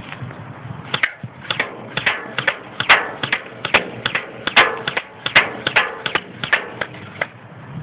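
G608 electric airsoft rifle, a G36-style replica, fired shot by shot in single-fire mode: a quick string of sharp clicks, about three a second, starting about a second in and stopping shortly before the end.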